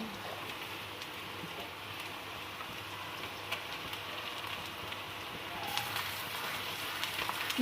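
Hot oil sizzling steadily in a karahi of golden-fried onions, with faint crackles; the sizzle grows a little louder near the end.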